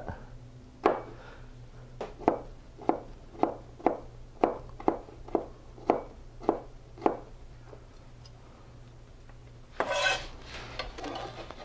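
Chef's knife chopping small gherkins on a plastic cutting board: about a dozen sharp chops, roughly two a second, stopping after about seven seconds. Near the end a short scrape as the chopped pieces are pushed together on the board.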